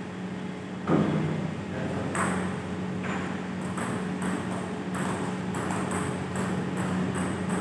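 A table tennis rally: the celluloid ball clicks sharply off the bats and the table, about three times a second, after a single louder thud about a second in. A steady low hum runs underneath.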